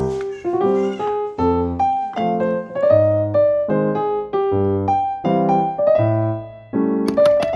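Background music: a piano playing a light melody over bass notes, several notes a second.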